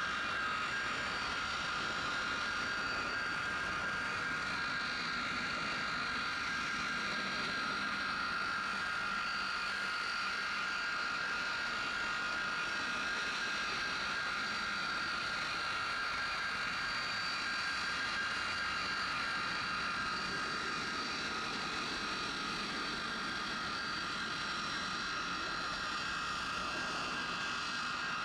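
Jet-engine railroad snowblower running with a steady turbine whine of several held tones over a rushing noise.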